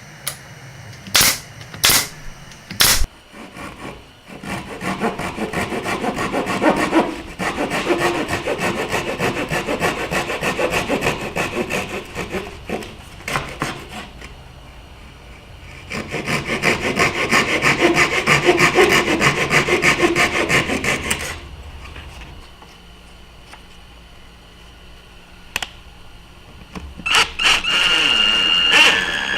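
Pine being sawn: two long stretches of steady, rasping cutting, with three sharp knocks at the start.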